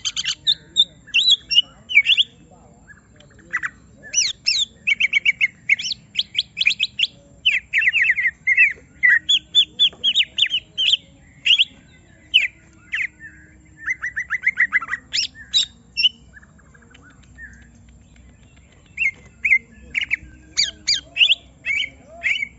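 Cucak ijo (green leafbird, Chloropsis) singing an agitated "emosi" song: rapid bursts of sharp chirps and fast trills, with a pause of a couple of seconds past the middle. This kind of song is played to provoke other cucak ijo into singing.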